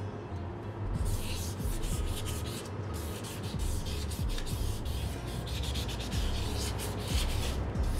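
Sandpaper being rubbed by hand over body filler on a Honda C70's steel body panel in quick back-and-forth scraping strokes, starting about a second in. This is the smoothing of the filler ahead of fine sanding and paint.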